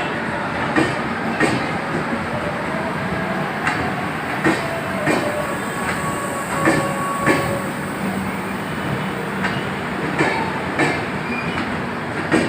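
Moving passenger train, the Humsafar Express, running steadily, its wheels clicking over rail joints in pairs every few seconds over a continuous rumble, with a faint thin squeal now and then.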